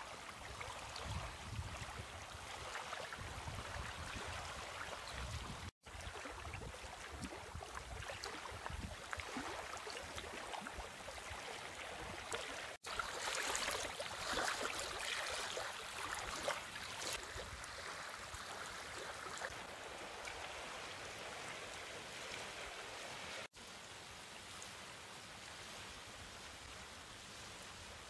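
Wind buffeting the microphone and small waves lapping on a stony lakeshore: a steady wash of outdoor noise that drops out for an instant three times where the clips are joined.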